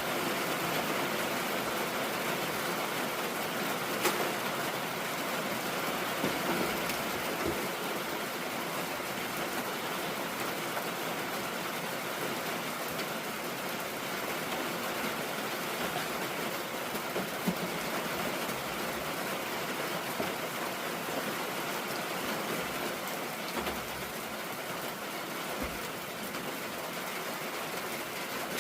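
Steady rain falling, an even hiss with a couple of sharp drop taps.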